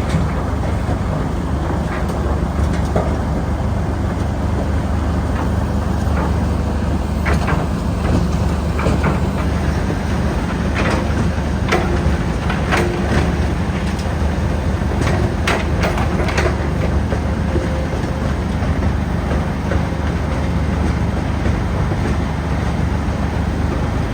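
Tracked mobile crusher running steadily on its diesel engine while crushing asphalt into millings, with scattered knocks and clatters of broken chunks through the middle.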